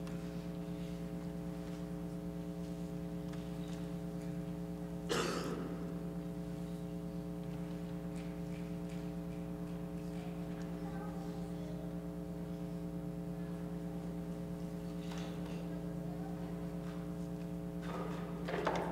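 A steady hum of several held tones that does not change, with a soft knock about five seconds in and another near the end.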